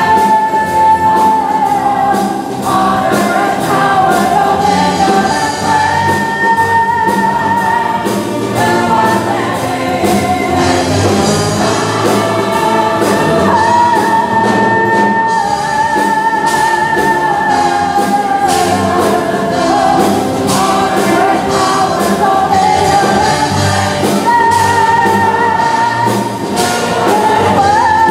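Female vocalist singing a gospel-style solo into a microphone, with long held notes sung with vibrato, over church orchestra and choir accompaniment.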